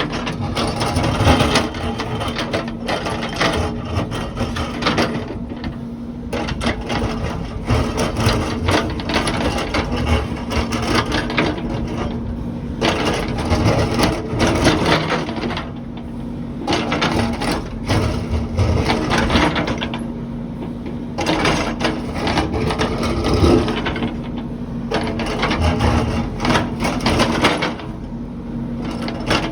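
Heavy construction machine working: a steady engine drone under repeated stretches of clattering and scraping, easing off briefly every few seconds.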